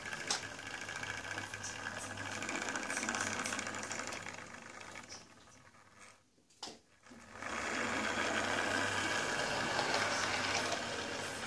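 Lima OO gauge BR Class 20 model locomotive running on track laid on a bare wooden board: a steady whirring motor hum with wheels rattling over the rails. The sound fades almost away about six seconds in, with a single click, then comes back just as steady.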